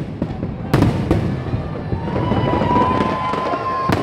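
Fireworks exploding: sharp bangs about a second in and again near the end, with crackling between them. A steady whistle-like tone is held through the second half.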